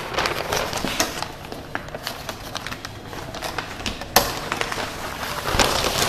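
Room noise with rustling and scattered small clicks from handling, with one sharper click about four seconds in.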